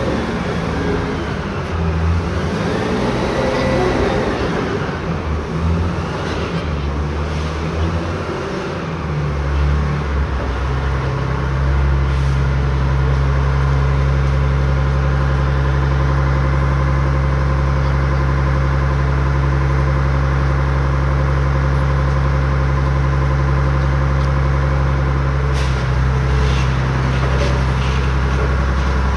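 Engine of a tracked M677 Lance missile transport running as the vehicle manoeuvres, its pitch rising and falling, then settling to a steady idle about ten seconds in. A few light clicks near the end.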